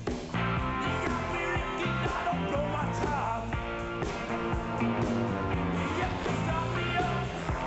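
Rock and roll music with guitar.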